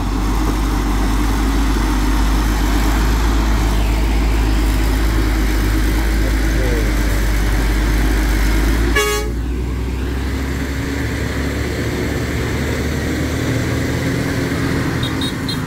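Heavy tractor-trailer truck's diesel engine running hard with a deep, steady rumble as it climbs a steep hairpin. About nine seconds in, a vehicle horn gives a short toot, and after it the deep engine rumble drops somewhat.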